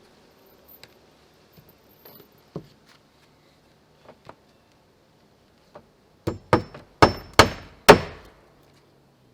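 Hammer striking nails into wood: a few faint taps and knocks, then five sharp blows in under two seconds near the end, each louder than the last.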